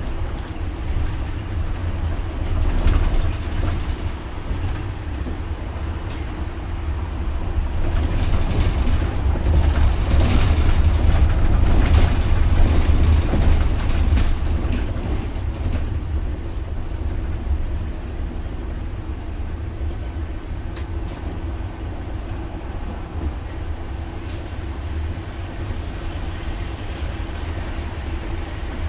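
Cabin sound of a MAN Lion's City articulated city bus with a biogas engine under way: a steady low rumble of engine and road, with rattles from the bus's fittings. It grows louder for several seconds in the middle, then settles back.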